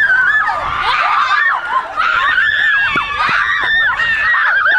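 A group of girls shrieking and laughing together: high-pitched, overlapping squeals that glide up and down.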